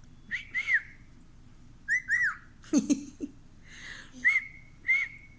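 Pet cockatiel whistling short notes that rise and fall in pitch, first in two quick pairs and then one at a time. About three seconds in there is a brief, lower-pitched sound.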